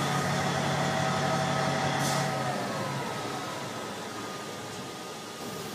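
Douglas TBL600 towbarless aircraft tractor's diesel engine running with a steady hum. There is a short hiss about two seconds in, and soon after the engine note drops away and the sound grows quieter.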